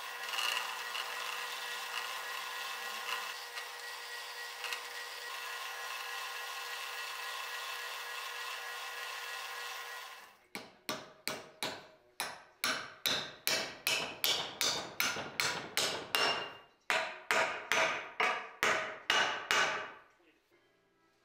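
Metal lathe running steadily with a faint whine while it turns a small steel pin, for about ten seconds. Then a fast, regular run of about twenty hammer blows on a steel fitting, a little over two a second, stopping about a second before the end.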